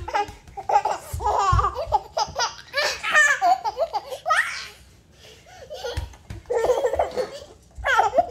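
Baby laughing in repeated bursts of belly laughter, stopping for about a second and a half midway, then laughing again.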